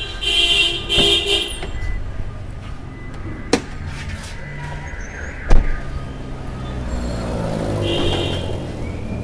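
Clunks from a 2004 Toyota Raum's door and bonnet release being worked: a sharp click about three and a half seconds in, then a heavy thump, the loudest sound, about two seconds later. A high horn-like tone sounds briefly at the start and again near the end.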